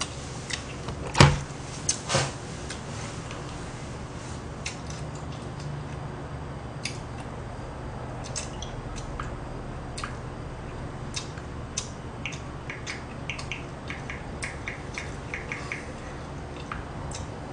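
Short clicks of a smartphone being tapped to look up a number, quickening into a run of quick clicks near the end, over a low steady room hum. One loud knock about a second in.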